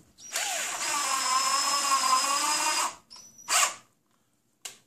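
Cordless drill driving a screw into a plastic wall plug in drywall: the motor whines steadily for about two and a half seconds, then gives a couple of short bursts as the screw is brought to depth.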